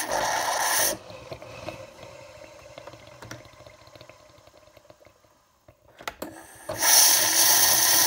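Nespresso Lattissima Pro coffee machine running its pump loudly, stopping about a second in. Scattered clicks and ticks follow during the pause, then the pump starts again loudly about seven seconds in.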